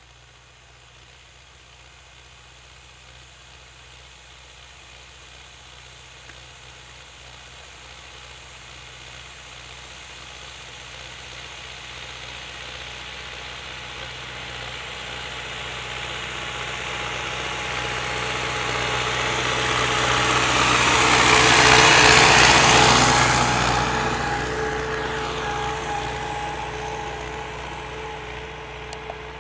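MTZ-50 tractor's four-cylinder diesel engine running steadily under load while it pulls a mounted plough through the soil. It grows louder as the tractor approaches, is loudest as it passes close by about 22 seconds in, then fades as it pulls away.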